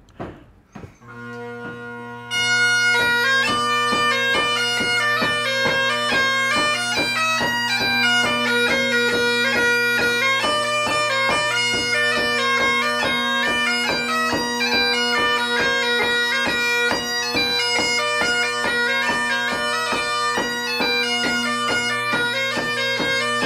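Great Highland bagpipes playing a tune: steady drones under the chanter's quick melody, which starts about two seconds in after a short rising note as the pipes strike in.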